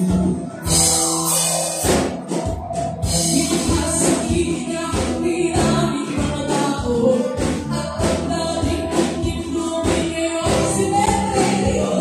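Live band playing a song: female vocals over electric guitar and a drum kit.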